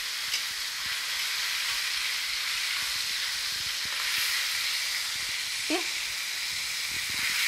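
Chicken strips sizzling in very hot oil in a stainless steel wok as they are sautéed and turned: a steady frying hiss.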